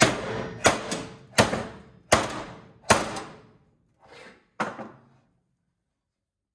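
Repeated blows banging the pressed-steel cage off a gas instant water heater: five strong metallic strikes about two-thirds of a second apart, each with a short ring, then two lighter knocks.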